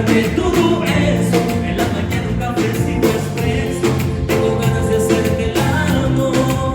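Live band playing a song with a steady drum beat and sustained instrument notes, amplified through the venue's sound system.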